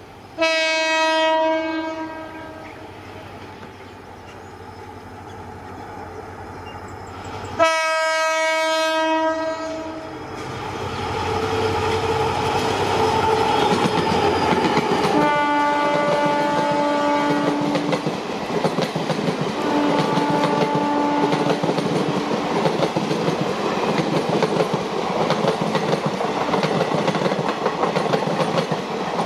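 EMD GT46MAC (WDG4) diesel-electric locomotive sounding its horn four times, each blast about two seconds long, with the later two a little lower and quieter. From about ten seconds in, a loud rumble builds as the locomotive passes, then the steady clickety-clack of passenger coaches rolling by on the rails.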